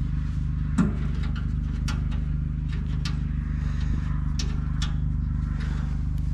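Small tractor engine running steadily at an even speed after being jump-started, with a few scattered clicks over it.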